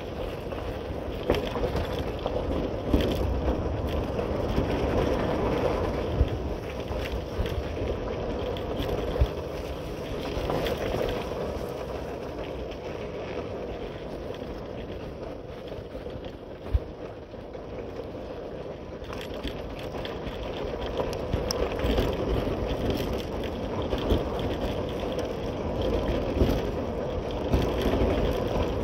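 Motorcycle on the move, heard from the rider's seat: a TVS Apache single-cylinder engine running under steady wind and road noise, with a few sharp knocks.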